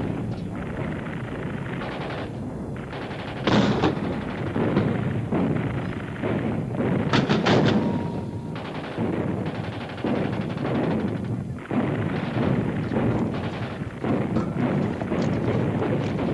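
Battle sounds: continuous gunfire, including machine-gun bursts, mixed with explosions. The loudest blast comes about three and a half seconds in, and a quick cluster of shots follows a few seconds later.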